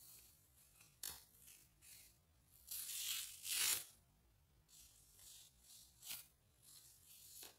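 Sheet of paper handled and crinkled between the hands: quiet rustling in short bursts with a few sharp crackles, loudest a little after the middle.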